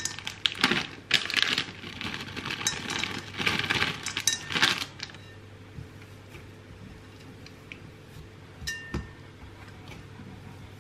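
White chocolate chips being sprinkled into a mixing bowl of cookie dough: a few scattered rounds of light clinks and rattles over the first five seconds. After that it is quieter, with one sharp click near the end.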